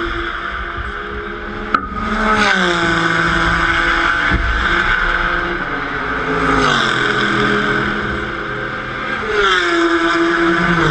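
Race cars passing the finish line at speed, one after another, each engine note dropping in pitch as the car goes by, about three passes. There is a single sharp crack about a second and a half in.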